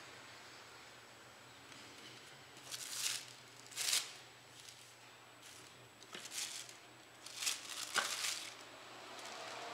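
Paper napkins pulled from a tabletop napkin dispenser and handled, giving a handful of short paper rustles, with a sharp click near the end.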